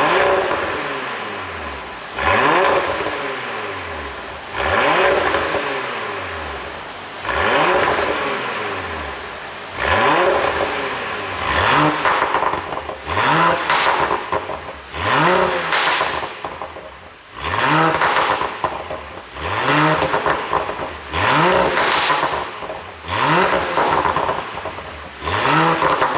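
Audi A7 55 TFSI's turbocharged V6 blipped repeatedly to high revs, about every two seconds. Each rev falls back with crackles and pops from the exhaust on the overrun, the pop-and-bang effect of its tuned ECU.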